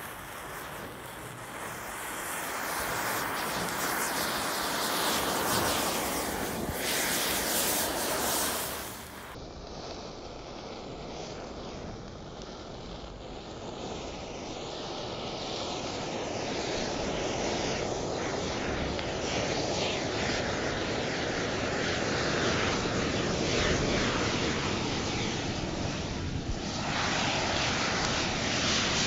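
Match heads igniting one after another along a row of upright matches, a continuous crackling hiss. Near the end it grows louder and brighter as the mass of match heads on the rocket catches in a big flare.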